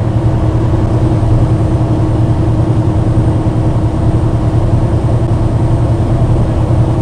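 Steady low drone of a semi truck's diesel engine and road noise, heard from inside the cab while driving.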